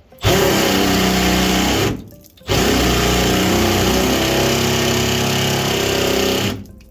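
A power tool run in two long trigger pulls, about one and a half seconds and then about four seconds, with a short pause between, working on the car's body-to-chassis bolts.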